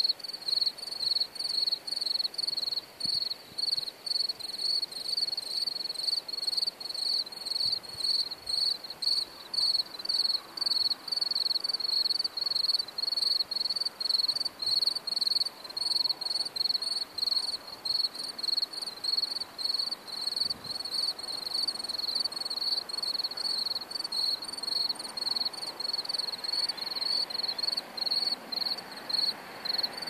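A cricket chirping: a high, evenly repeated chirp that keeps up without a break. Near the end a faint rushing noise grows underneath it.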